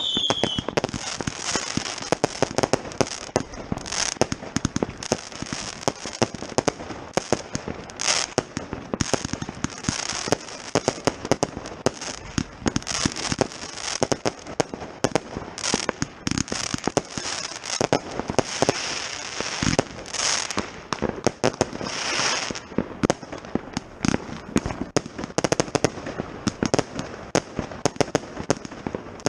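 Firework batteries (Panda Red Heat and Toschpyro 36 cakes) firing: a dense, continuous crackle of many small pops and bangs, with louder reports scattered through it.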